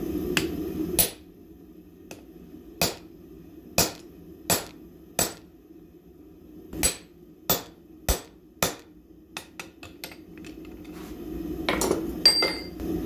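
Hammer blows on a hand punch driving a rivet hole through red-hot steel tong reins on an anvil: about nine sharp metal strikes spaced unevenly, half a second to a second and a half apart. A few lighter taps follow, then another cluster of strikes near the end.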